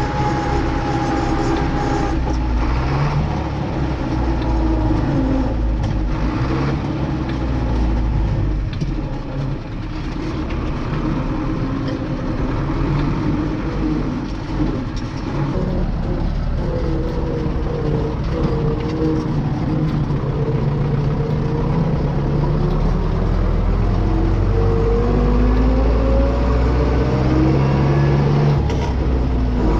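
Tractor engine running, heard from inside the cab, its pitch drifting up and down as the engine speed changes. A high thin whine stops about two seconds in.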